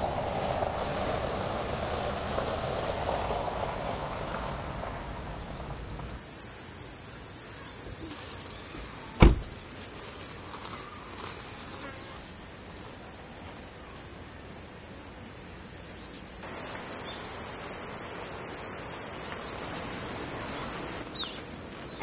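Steady, high-pitched insect chorus, louder after the first six seconds. Over the first few seconds an SUV's tyres and engine pass by on the road. About nine seconds in there is one sharp knock.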